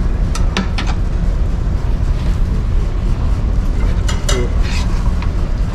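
Steady low drone of the ferry Osaka II's engines heard inside the ship. A few short, sharp clinks of tableware come through it, several near the start and a couple about four seconds in.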